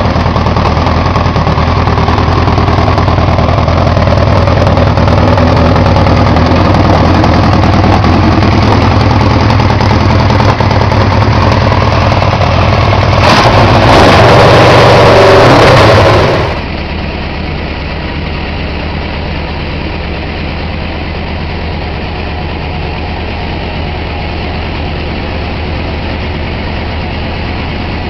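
Kawasaki GTR 1000 motorcycle's inline four-cylinder engine running steadily at idle through its exhaust. Near the middle it gets much louder for about three seconds, then the sound cuts to a second, quieter recording of the engine idling evenly.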